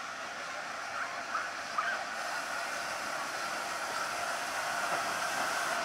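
LNER Peppercorn A1 Pacific steam locomotive 60163 Tornado rolling slowly tender-first alongside the platform, a steady hiss that grows louder as it approaches.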